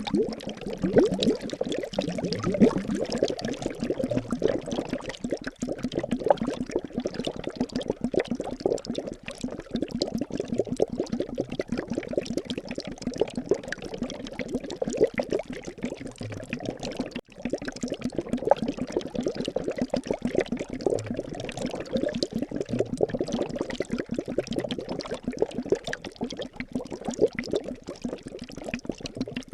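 Water bubbling and gurgling steadily, a dense, unbroken run of small liquid sounds.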